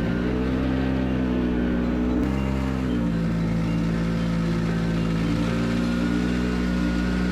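Snowmobile engine running steadily, its pitch shifting slightly a couple of times.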